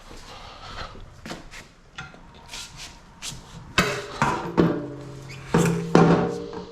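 The BRZ's stock steel catback exhaust clanking as it is worked off its hangers and pulled out. Light clicks and scrapes come first, then from about four seconds in several loud metal knocks that leave the pipe ringing.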